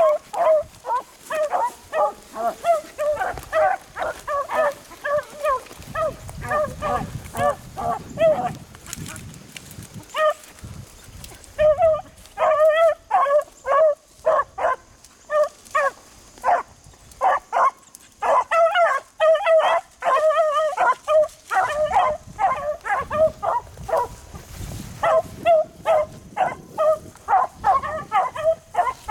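A brace of beagles baying in quick, repeated calls as they trail a rabbit, with a break of about three seconds a third of the way in.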